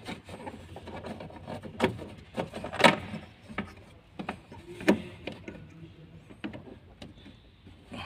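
Irregular sharp clicks and knocks of hard plastic as the fuel hose quick-connector is handled and fitted onto the plastic top of the car's fuel pump module, the loudest about three seconds in.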